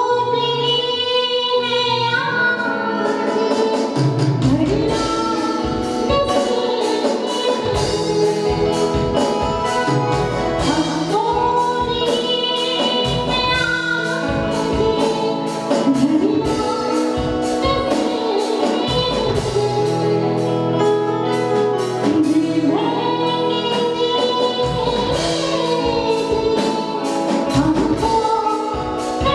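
Live band music through a PA: a woman singing a melody into a microphone over a drum kit keeping a steady beat and keyboard accompaniment.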